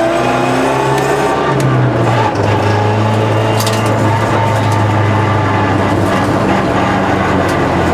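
Rally car engine heard from inside the cabin, dropping to a lower, steady note about two seconds in as the car eases off, with a few light clicks.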